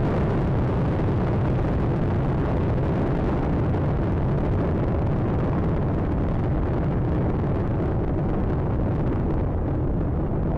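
Space Shuttle Atlantis's solid rocket boosters and three main engines in ascent: a steady, heavy crackling rumble, its upper edge thinning a little near the end as the vehicle climbs away.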